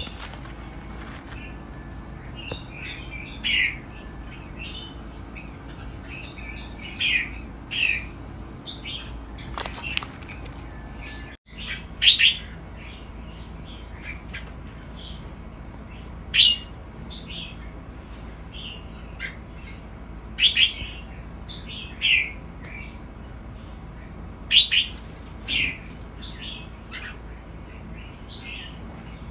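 Red-whiskered bulbuls calling: short, bright chirping phrases every second or two, a few of them much louder than the rest. The sound cuts out for a moment about eleven seconds in.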